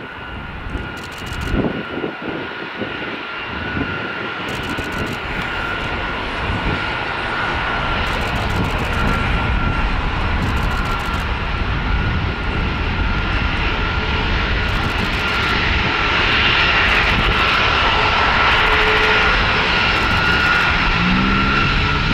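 RC-135 Rivet Joint's four CFM56 (F108) turbofan engines at taxi power: a steady jet roar with a high whine over it, growing louder as the aircraft taxis close by.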